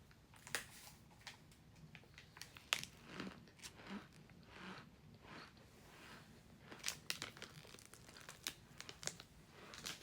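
Quiet crinkling and crunching with scattered sharp clicks: small plastic sample bags being handled and flavored cornstarch being bitten and crunched.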